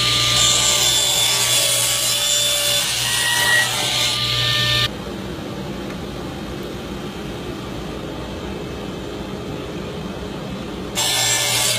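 Power tool cutting wood: a steady motor hum under a hissing cutting noise. About five seconds in it cuts off abruptly to a quieter, even noise, and the loud cutting sound returns near the end.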